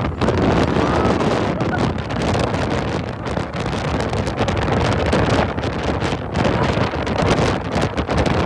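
Gusty wind buffeting the microphone, a loud rushing noise that rises and falls, with leaves rustling in the wind.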